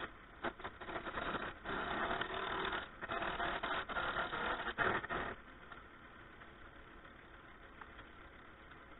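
Wood lathe turning a long ash spindle while a turning tool cuts it in short, rough scraping passes; a little over five seconds in the cutting stops and only the lathe's quieter running is left.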